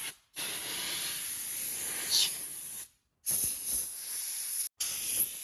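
Pressurised spray hissing in three long bursts separated by short breaks, with a brief whistle in the middle of the first burst.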